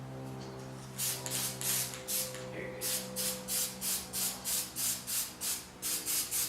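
Can of black aerosol spray paint worked in quick rhythmic strokes: short hissing bursts, about three a second, starting about a second in, over a steady low hum.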